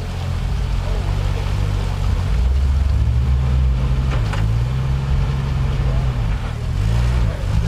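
Jeep Wrangler engine working under load through mud, revving up and down several times as the driver feathers the throttle.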